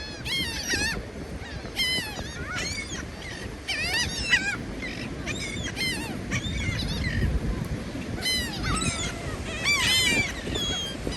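A crowd of seagulls calling over one another: many short, arching squawks overlapping in quick succession as the birds gather for bread.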